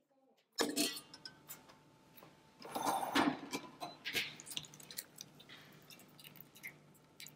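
Kitchen utensils clinking and scraping against metal cookware: a run of light ticks and clicks, with a louder stretch of scraping about three seconds in, over a faint steady hum.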